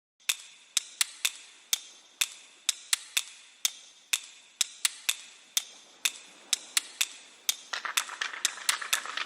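A run of sharp, irregularly spaced clicks or taps, about two to three a second. A steady hiss joins in about three-quarters of the way through.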